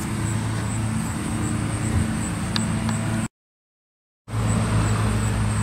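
Steady low background hum of a running motor, broken by about a second of dead silence a little past the middle, then carrying on, with a faint metal tick before the gap.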